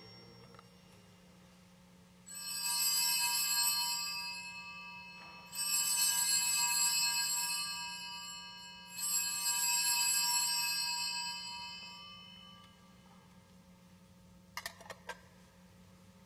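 Altar bells rung three times at the elevation of the host after the consecration, each ring a bright cluster of several high tones that fades over about three seconds. A few short clicks follow near the end.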